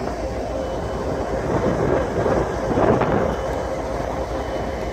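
Freight train rolling past close by: a steady rumble of locomotive and cars on the rails with a faint steady tone, swelling to its loudest a little under three seconds in.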